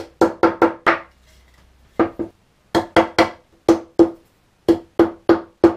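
A block of wood used as a mallet, knocking glued wooden plugs into the screw holes of a wooden frame. About sixteen sharp knocks come in quick groups, each with a short ring at the same pitch.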